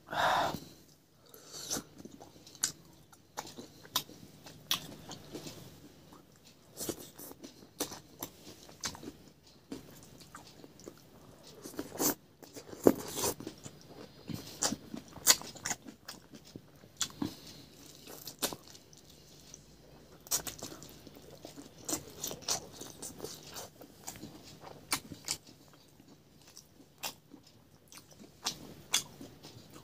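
A person chewing and crunching food, with many irregular crisp crunches and mouth sounds throughout and one louder burst at the very start.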